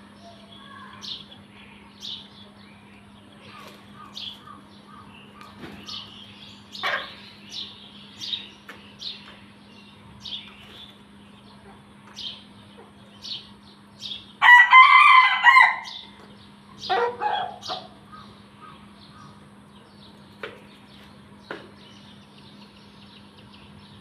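Backyard chicken flock: a rooster crows loudly once about midway, with a second, falling call straight after. Short high-pitched chirps and clucks repeat about once a second throughout.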